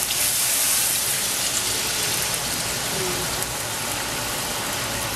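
Hot water poured from a pot into a wok of frying beef, with a steady hissing sizzle. The hiss is brightest about the first second and then eases slightly as the water keeps running in.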